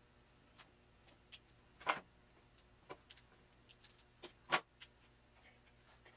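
Irregular light clicks and taps of tools and small objects being handled on a worktable, with two sharper knocks about two seconds and four and a half seconds in.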